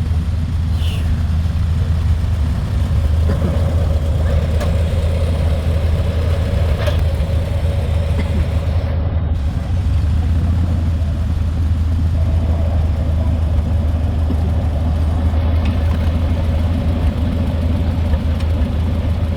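An engine running steadily at a constant speed, with a strong low hum that holds level throughout.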